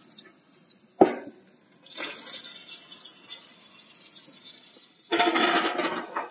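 Hot olive oil hissing steadily in a stainless pot on a camp stove. About five seconds in, diced sweet potatoes and sliced mushrooms are tipped into the oil and it sizzles loudly for about a second. A sharp knock comes about a second in.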